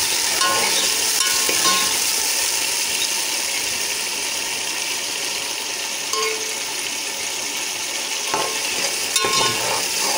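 Fried onions, ginger-garlic paste and water bubbling and sizzling in oil in a cooking pot while being stirred, with a few light clinks of the spoon against the pot near the end.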